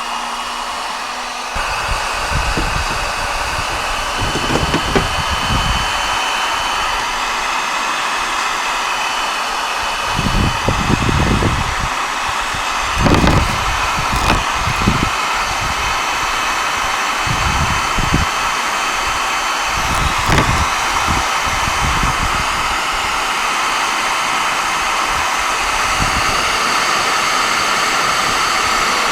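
Hot-air gun or hair dryer blowing steadily, close by, as used to warm a car panel during paintless dent repair. Irregular low thumps come and go underneath.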